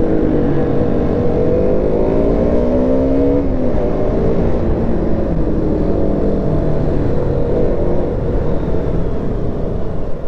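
KTM Duke motorcycle engine running under way, ridden with its clutch plate gone. The revs climb over about three seconds, then drop back, over a steady rush of wind and road noise.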